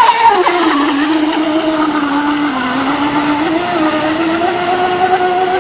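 RC speed boat's motor whining steadily as the boat runs across the water, its pitch sagging a little in the first seconds and rising again past the middle.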